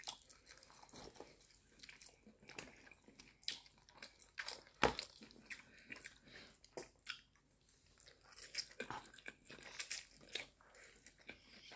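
Close-up mouth sounds of someone chewing and biting noodles and pan-fried dumplings: faint, irregular smacks and clicks, with one sharper click about five seconds in the loudest.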